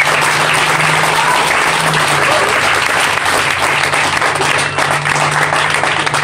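A crowd clapping and applauding steadily.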